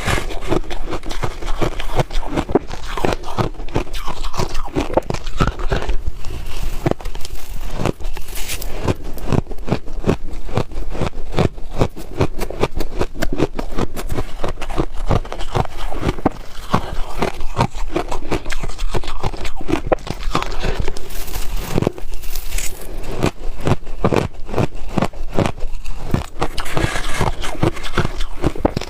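Freezer frost being scraped up and crunched between the teeth, close-miked: a dense, unbroken run of crisp crackles and crunches.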